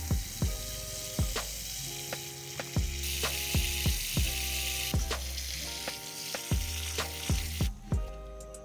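A hand-pump pressure sprayer hisses as it sprays water into a pot of soil. The hiss is strongest in the middle and stops near the end. Background music with a steady beat plays throughout.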